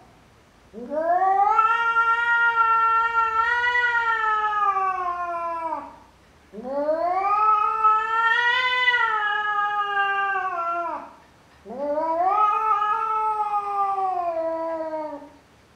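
Tabby domestic cat yowling at its own reflection in a mirror, which it takes for another cat: three long calls of about four to five seconds each, each rising in pitch at the start and sliding down at the end, with short pauses between.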